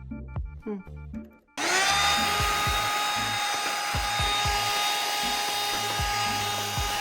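Power drill spinning up with a quick rising whine about a second and a half in, then running steadily at a high pitch as it bores out a hole in a motorcycle's metal upper triple clamp. It stops just after the end.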